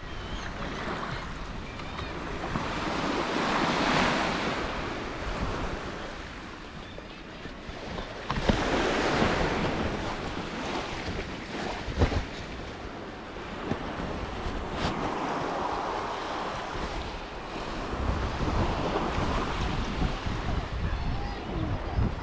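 Small waves washing onto a sand-and-shingle shore, swelling and ebbing every few seconds, with wind buffeting the microphone. A few brief sharp knocks, around 8 and 12 seconds in.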